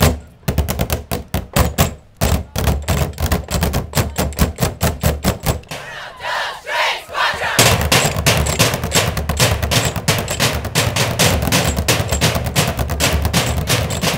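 Students drumming fast, driving rhythms with drumsticks on galvanized metal and dark plastic trash cans used as percussion. The strikes break off briefly about six seconds in, then come back full and steady.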